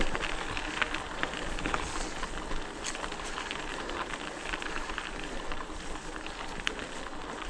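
Mountain bike rolling along a forest trail: a steady rush of tyre and wind noise with many small crackles and clicks, as from twigs and gravel under the tyres.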